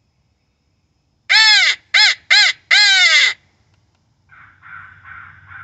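Hand-held crow mouth call blown close by: four loud caws in quick succession, the last the longest. About a second later a fainter run of caws answers, crows calling back from far off.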